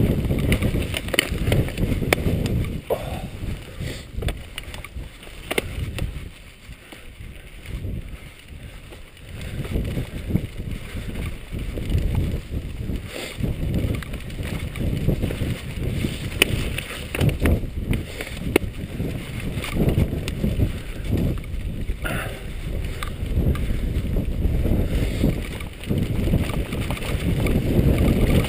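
Mountain bike ridden fast over rough, tussocky grass: a steady low rumble of wind on the camera microphone, with clicks and rattles from the bike jolting over the bumpy ground. It goes quieter for a few seconds about a quarter of the way in, then picks up again.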